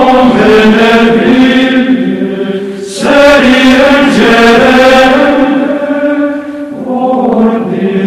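Chanted vocal music: voices holding long sung notes, with a new phrase starting about three seconds in and another near seven seconds.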